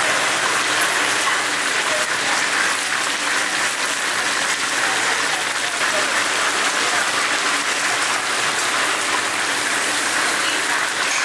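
Oil sizzling steadily in a deep fryer as chicken pieces fry, an even crackling hiss with no pauses.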